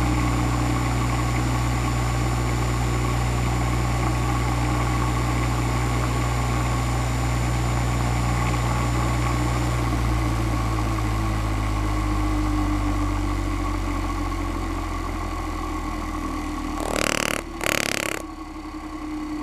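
Vintage 1 hp Westinghouse single-phase capacitor-start induction motor started across the line, with no current limiter, then running with a steady electrical hum and a faint high whine that stops about halfway through. Two short rushing noises come near the end while the hum carries on.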